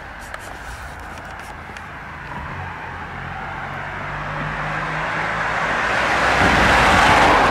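A car approaching along the road and passing close by, its engine and tyre noise swelling steadily to a peak near the end.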